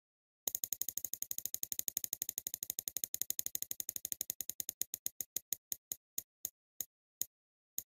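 Prize-wheel clicker ticking as the wheel spins: rapid clicks, about ten a second at first, that slow down and space out until the wheel stops a little after seven seconds.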